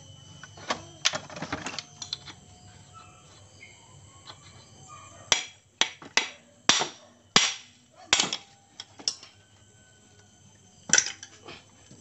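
Metal knocks as a shaft is tapped out of a Yamaha Vega ZR crankcase half: a run of sharp strikes, about two a second through the middle, and one more near the end, after some clattering of the case parts at the start.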